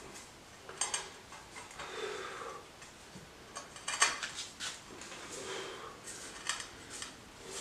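Ceramic floor tiles clinking and scraping against each other as a loose tile is shifted and pressed into place by hand; several short clicks.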